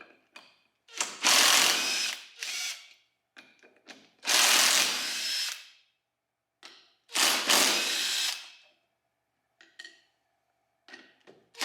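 A cordless power driver running in four short bursts, each about half a second to a second and a half long, loosening the fasteners of a TH400 automatic transmission's oil pump to take it apart. Small metallic clicks and clinks come between the bursts.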